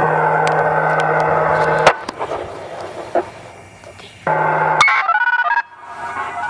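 Public-address loudspeaker of an outdoor nuclear-plant warning siren switched on with a steady electrical hum and noise, cutting off abruptly about two seconds in. A few seconds later it switches on again briefly with a short sequence of steady electronic tones, then cuts off.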